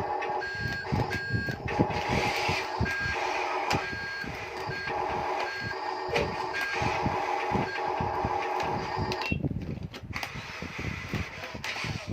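Electronic reversing beeper of a radio-controlled construction vehicle model, beeping repeatedly over the whirring and clicking of its small electric motors and plastic gears. The beeping stops about nine seconds in.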